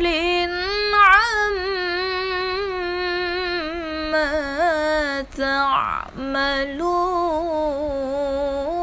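Young woman's voice chanting Qur'an recitation in melodious tartil style, holding long ornamented notes on the words "bighafilin 'amma". There is a short break for breath about halfway through.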